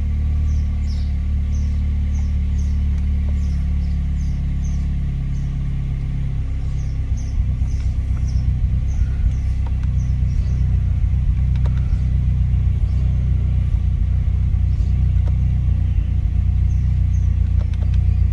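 Chevrolet Cobalt SS engine idling, heard from inside the cabin as a steady low hum. About six or seven seconds in the idle note shifts and turns slightly uneven. The boost gauge shows vacuum, so the engine is at idle with no boost.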